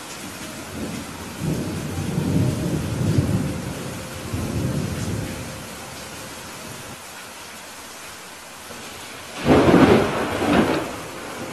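Steady rain hiss with thunder: a low rolling rumble for a few seconds after the start, then a sudden loud thunderclap about nine and a half seconds in that rumbles on for a second or so.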